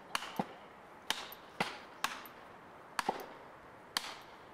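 Felling wedges being driven into a tree's back cut by hammer blows: a run of sharp strikes, about two a second and some in quick pairs, several with a short ring.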